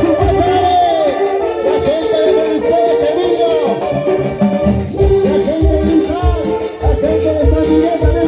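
Live band playing Latin dance music: a melody that slides up and down in arching phrases over bass and a steady drum beat.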